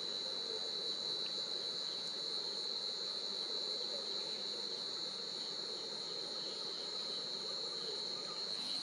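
A steady, unbroken high-pitched chorus of insects shrilling without pause.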